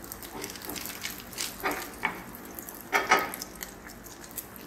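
Diced bacon sizzling and crackling in olive oil in a stainless steel frying pan while it is stirred with a wooden spoon. Two louder scrapes of the spoon against the pan come about a second and a half and three seconds in.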